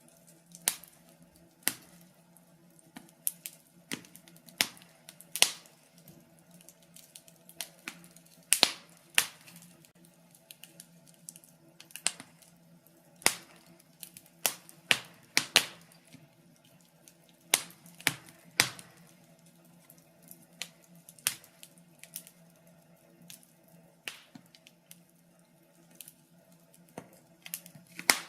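Wood fire crackling, with irregular sharp pops and snaps, some loud and many faint, over a faint steady low hum.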